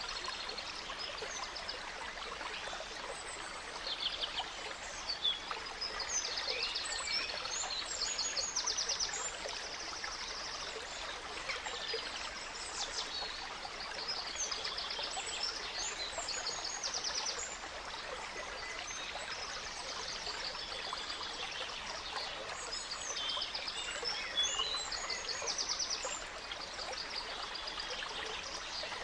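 A small stream flowing steadily, with several songbirds calling over it in short chirps and quick trills, busiest early on and again a few seconds before the end.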